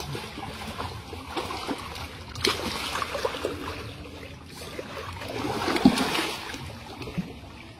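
Water splashing as a large fish thrashes in a net in shallow muddy water, with a sharp splash about two and a half seconds in and a longer burst of heavy splashing around six seconds in.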